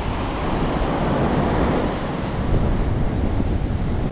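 Strong wind buffeting the microphone with low rumbling gusts, over the steady wash of surf breaking on the beach.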